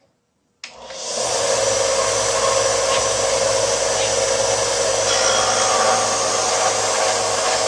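An electric power sander running steadily, shaping a cast resin knife handle. It starts abruptly about half a second in and drops to a lower level near the end.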